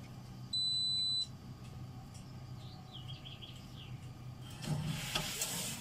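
Cash machine giving one steady high-pitched beep, under a second long, about half a second in, as the cash withdrawal is accepted. Its low hum runs underneath, and near the end there is a short stretch of mechanical whirring as it processes the operation and readies the cash.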